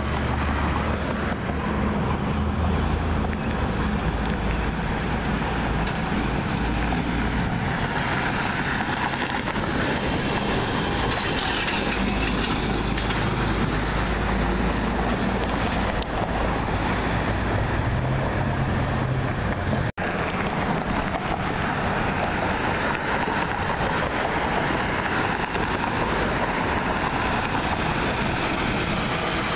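Street traffic driving by: cars and heavy trucks, with diesel engine noise and steady tyre and road rush. The sound cuts out for an instant about two-thirds through. Near the end a rear-loading garbage truck drives past.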